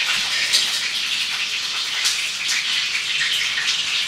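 Water running steadily from a kitchen tap and splashing, as vegetables are washed under it.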